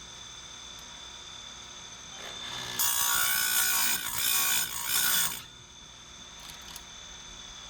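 Electric chainsaw-chain grinder running with a steady high whine. A little under three seconds in, the grinding wheel is brought down onto a chain cutter tooth and grinds it loudly and harshly for about two and a half seconds, sharpening the tooth, then only the motor's whine is left.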